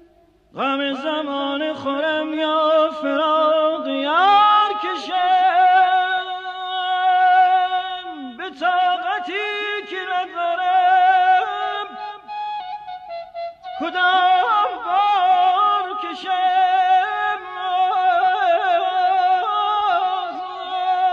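Persian classical music in the Nava mode: a single melodic line with long held notes, pitch slides and vibrato, starting about half a second in and breaking off briefly twice.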